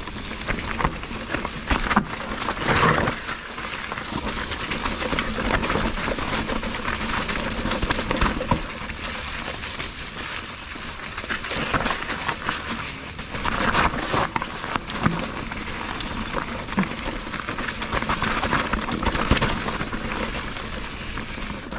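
Mountain bike riding down a wet dirt singletrack: tyres rolling over the dirt and the bike rattling, with frequent sharp knocks over bumps, over a steady rushing noise.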